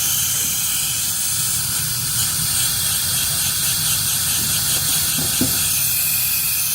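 Compressed air hissing steadily out of a workshop air compressor at its intake, over a low steady hum. The leak makes it lose pressure, which the owners suspect is the intake check valve stuck open.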